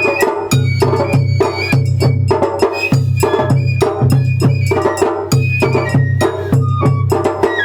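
Japanese festival hayashi music: a bamboo flute playing a stepping melody over rapid, steady drum strikes.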